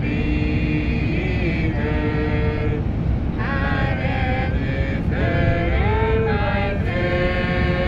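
Vocal music with long held sung notes that glide between pitches, over the steady low rumble of a car's engine and tyres on the road.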